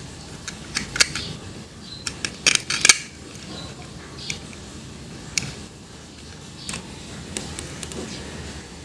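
Hard plastic toys being handled, with scattered sharp clicks and knocks and a quick cluster of louder ones about two and a half to three seconds in.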